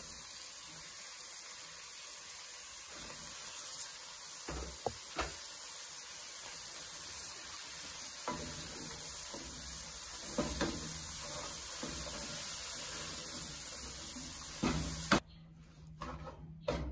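Onions and snails sizzling in oil in an aluminium pot while sliced greens are stirred in with a wooden spatula, with a few short knocks of the spatula against the pot. The loudest knock comes about fifteen seconds in, and the sizzle cuts off suddenly right after it.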